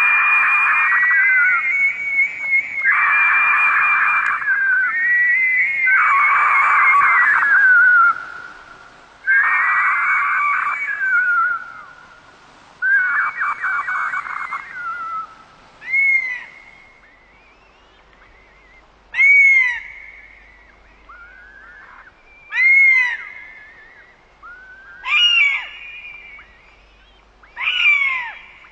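Bird-of-prey screams: long, harsh, drawn-out calls repeated back to back for about the first fifteen seconds, then five short calls that rise and fall in pitch, about one every three seconds.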